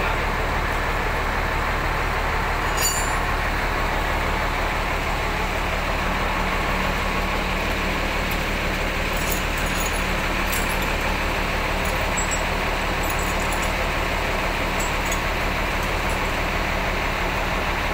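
A large diesel bus engine idling steadily. A sharp click comes about three seconds in, and a few faint clicks follow later.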